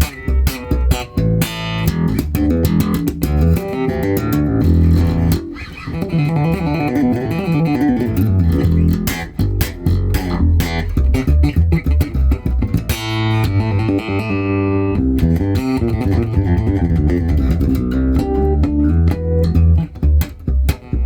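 1997 Fender American Deluxe Precision Bass played solo through an amp, a run of plucked notes with sharp attacks, set for a scooped tone with the mids backed off and the treble up: very bright, Music Man-ish.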